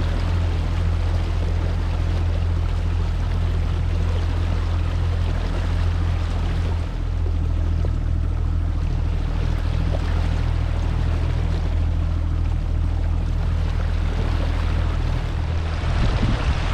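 Tohatsu outboard motor running at a steady speed as the small boat cruises, with water rushing past the hull.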